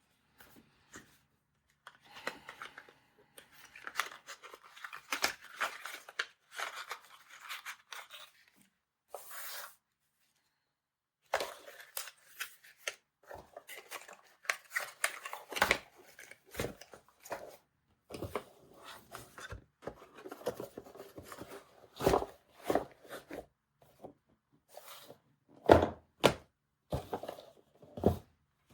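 Hands handling packaging and small plastic parts: crinkling and tearing for the first several seconds, then a brief pause, followed by a run of sharp clicks and knocks.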